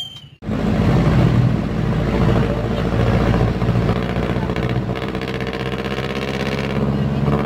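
Jeepney engine running steadily under way, heard from inside the open-sided passenger cabin; the drone starts about half a second in.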